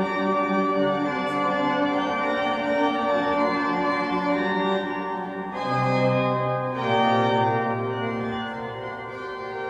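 Organ music: slow, sustained chords held for several seconds, the chord changing about five and a half seconds in and again about a second later.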